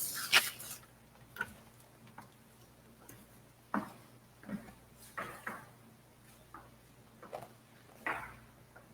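Faint room tone broken by scattered small knocks and rustles at irregular intervals, about ten over the several seconds.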